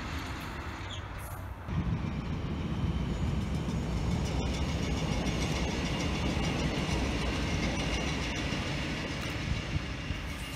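ÖBB Cityjet (Siemens Desiro ML) electric multiple unit running past on the rails: a steady rumble of wheels on track that begins abruptly about two seconds in and eases slightly near the end.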